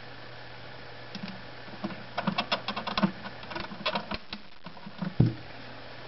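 Plastic water filter cartridge being twisted clockwise into its filter head until it stops: a run of plastic clicks and knocks, with one louder knock near the end.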